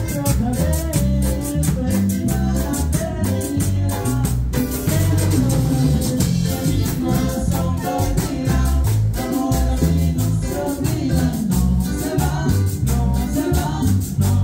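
Live band playing Latin dance music: congas, electric bass and keyboard, a metal güira scraped in a steady rhythm, and a man singing into a microphone.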